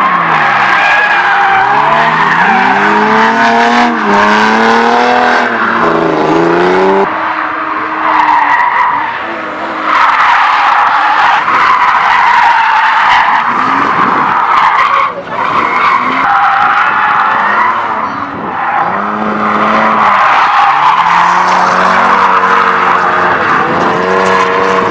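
Drift cars sliding sideways in tandem, their tyres squealing loudly while the engines rev up and down on the throttle. The sound breaks off and changes abruptly several times as one clip cuts to the next.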